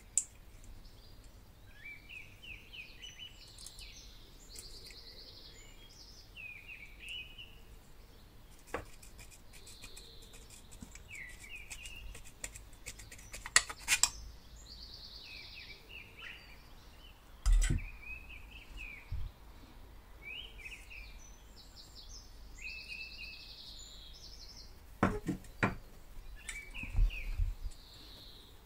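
Small birds chirping and trilling over and over in the background. Over them come a few sharp clicks and knocks of metal parts and wires being handled as an old hair drier's motor is taken apart. The loudest knocks fall near the middle, one with a dull thud.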